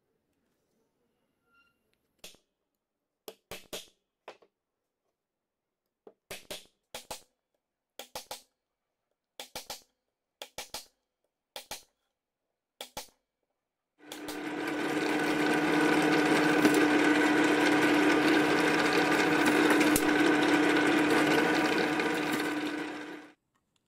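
A hammer striking a punch against a metal hard-drive platter: about fifteen sharp strikes, often in quick pairs or threes. From about 14 s a bench drill press runs steadily with a strong hum, drilling the platter, and stops about a second before the end.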